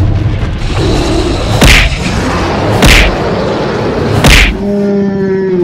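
Three loud cartoon hit-and-swoosh sound effects, each about a second and a half apart, over background music. Near the end a steady held tone comes in.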